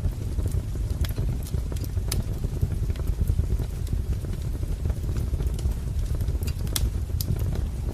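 Wood fire crackling: a steady low rumble of burning logs with irregular sharp pops and snaps scattered through it.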